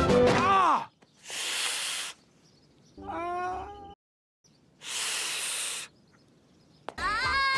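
A brass music sting slides down and ends in the first second. Then a cartoon man's pained sharp hisses through clenched teeth alternate with wavering groans, two of each, the sounds of someone in pain after hurting his knee in a fall.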